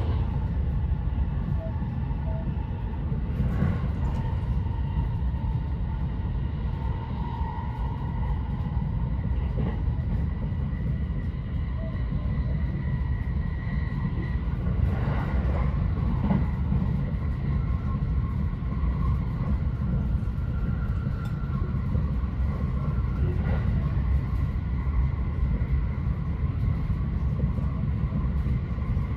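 Haruka limited express electric train running at speed, heard from inside the passenger car: a steady low rumble of wheels on rails, with faint high tones that drift in and out.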